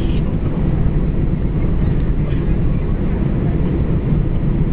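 Airbus A320 heard from inside the passenger cabin: a steady, loud, low rumble of the engines and airflow.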